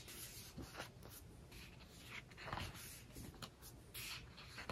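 Faint, intermittent paper rustles and brushing as the pages of a photobook are turned and handled, several soft strokes a second or so apart.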